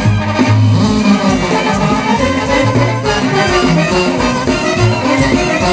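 Mexican banda brass band playing: a bouncing tuba bass line under trumpets, with drums keeping a steady beat.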